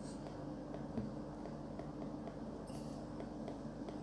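Steady low electrical hum with a few faint light clicks, one a little stronger about a second in: stylus taps on a tablet screen while handwriting.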